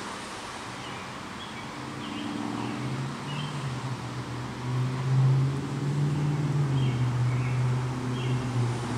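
Low, steady engine hum of a motor vehicle, growing louder about two seconds in, with a few short bird chirps over it.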